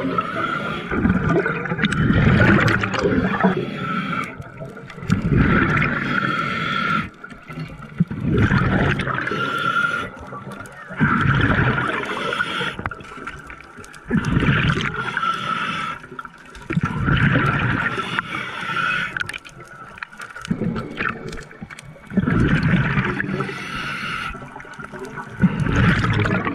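A scuba diver breathing through a regulator underwater: bubbles of each exhale gurgle past in loud bursts about every three seconds, with quieter inhales between them.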